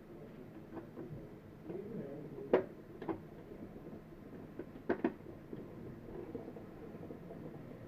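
A few sharp clicks and knocks of hard objects being handled: one loud knock about two and a half seconds in, a lighter one soon after, and a close pair near five seconds in.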